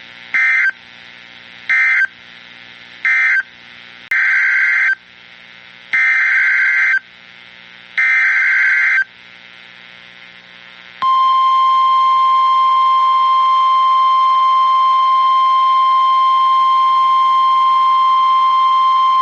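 NOAA Weather Radio Emergency Alert System signals: three short end-of-message data bursts about a second apart, then three longer SAME header data bursts, each a raspy warble, announcing a flash flood warning. Then the steady 1050 Hz warning alarm tone sounds for about nine seconds.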